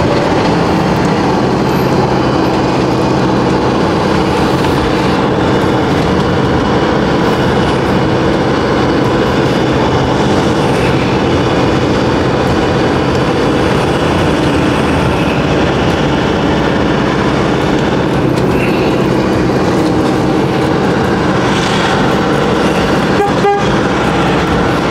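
Motorhome driving at an even speed, heard from inside the cab: a steady engine hum over road noise.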